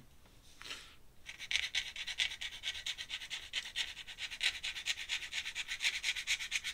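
Ink pen nib scratching across paper in quick, short back-and-forth strokes, about seven a second, starting a little over a second in.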